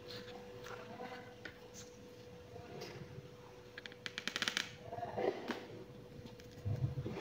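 Wooden calligraphy pen scratching on paper while Arabic letters are written, with a quick rattling scratch of about a dozen ticks about four seconds in.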